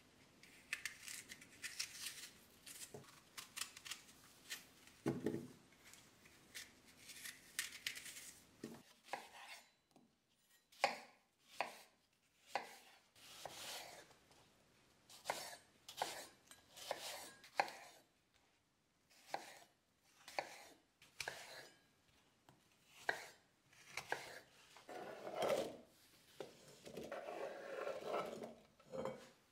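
Kitchen knife working apples: soft scraping as the core is cut out of an apple held in the hand, then from about nine seconds in a string of sharp knocks, about one a second, as the knife chops apple into cubes on a wooden cutting board. Near the end the knife scrapes the apple cubes off the board into a bowl with a longer rustling clatter.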